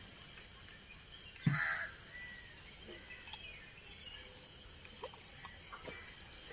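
Insects chirring in pulses about a second long, repeating roughly every second and a half, over a steady high-pitched whine. A short louder sound breaks in once, about one and a half seconds in.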